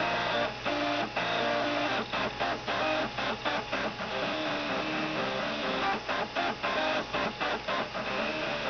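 Three stepper motors playing a tune, each one's step rate sounding as a buzzy pitched note, changing note every fraction of a second with several notes at once: stepper-motor music.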